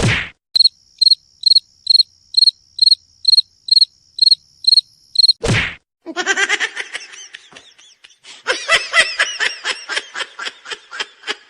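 Cricket chirping sound effect, the meme cue for an awkward silence: short high-pitched chirps repeating evenly about twice a second. About halfway through it cuts off with a brief loud sweep, and a different sound effect follows, a rapid pulsing pitched sound.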